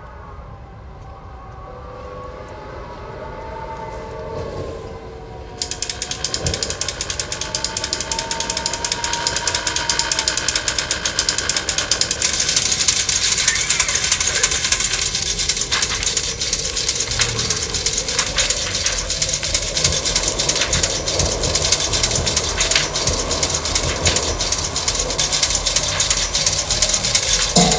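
A wavering tone, then about five and a half seconds in a dense, rapid clicking and whirring of clockwork wind-up tin toys starts suddenly and runs on loudly.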